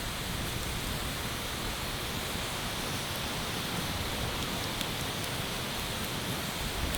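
Campfire burning with a steady hiss and a few faint crackles.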